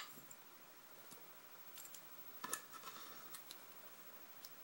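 A few faint metallic clicks and taps from a small brass lock cylinder and its key being handled and turned, the loudest small cluster about halfway through.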